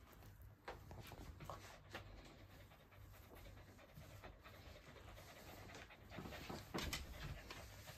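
Boston terrier panting softly and quickly, with a few short clicks, the loudest about seven seconds in.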